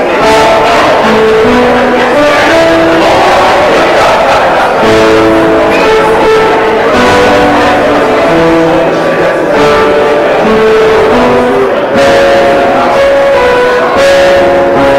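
Live instrumental music: a slow melody of held notes moving over sustained accompanying chords, played steadily.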